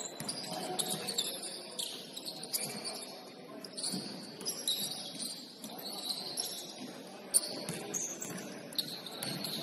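Basketball shoes squeaking on a hardwood gym floor during play, many short high squeaks, with one sharp knock about seven seconds in.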